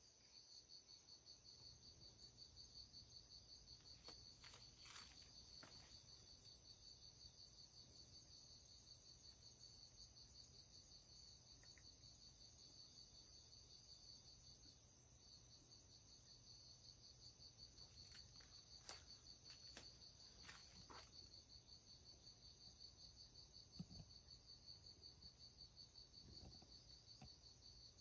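Faint, steady chorus of crickets: several high-pitched rapid trills overlapping, with a few soft clicks now and then.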